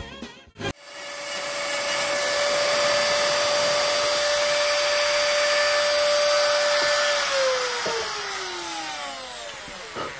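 Handheld rotary tool on a flexible-shaft extension with a coarse milling bit, switched on about a second in and running at a steady high whine. About seven seconds in it is switched off and winds down, its pitch falling.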